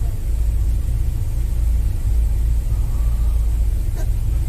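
Steady low vehicle rumble heard inside an RV, with a faint click about four seconds in.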